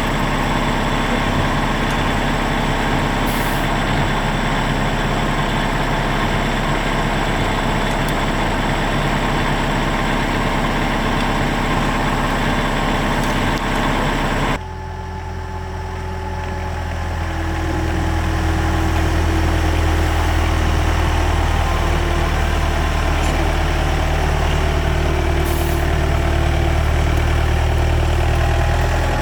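Excavator's diesel engine running steadily. About halfway through, the sound changes abruptly to a deeper, heavier running with less hiss, which builds up over the next few seconds.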